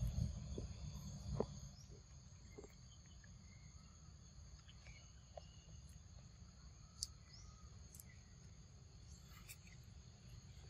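Faint forest ambience: a steady high insect drone, with a low rumble that is louder in the first two seconds and a few faint clicks and chirps.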